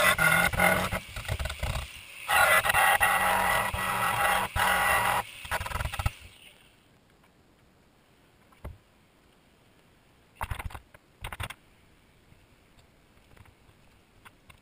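Angle grinder working a welded stainless steel tube frame, loud and rough with a steady motor whine, in two runs split by a short pause about two seconds in. It stops about six seconds in, leaving near quiet with a few faint knocks.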